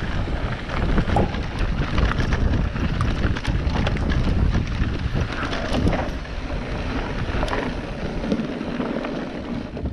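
Mountain bike rolling over a stony dirt trail: steady tyre rumble and crunch on gravel with scattered clicks and knocks, and wind rushing across the microphone.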